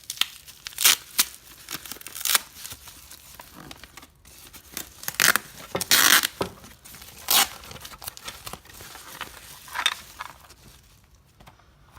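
Packaging being handled and unwrapped by hand: a run of irregular sharp rustles and rips, the loudest about a second in and again around five to six seconds in.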